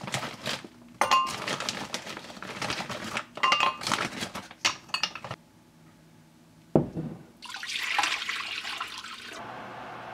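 Plastic food packet being cut open and handled, crinkling, with rice cakes clinking against a glass bowl. A single knock comes about seven seconds in, then water pours into the glass bowl for about two seconds to soak the rice cakes.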